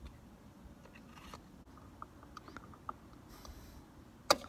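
Fuel-tank filler cap being put back on by hand: faint handling ticks and a brief rubbing of the cap turning on the filler neck, then one sharp click near the end as the cap ratchets tight.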